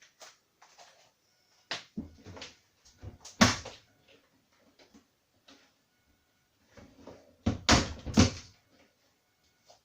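A series of knocks and clunks, like a door or panel being handled, in two clusters about five seconds apart. The loudest is a sharp knock about three and a half seconds in.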